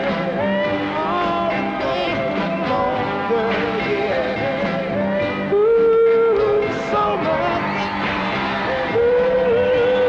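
A 1960s Motown soul song played: a lead singer over a backing band, with a long held vocal note about halfway through and another near the end.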